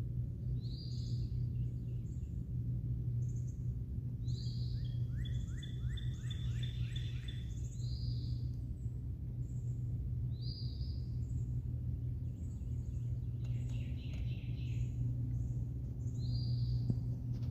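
Wild birds chirping: a short high note repeated every few seconds, and a fast trill of falling notes twice. They sound over a steady low rumble that is louder than the birds.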